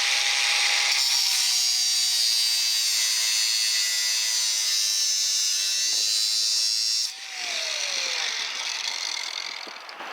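Angle grinder cutting through a metal bar: a loud, high-pitched grinding over a steady motor whine whose pitch sags slowly under load. About seven seconds in the disc comes off the metal and the grinding stops, and the motor winds down with its pitch falling.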